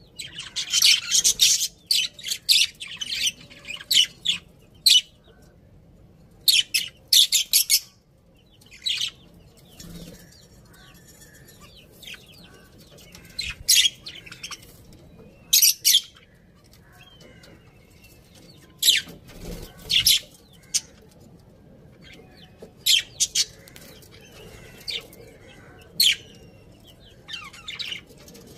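Budgerigars chirping in short, high-pitched bursts, coming in clusters with quieter gaps between them.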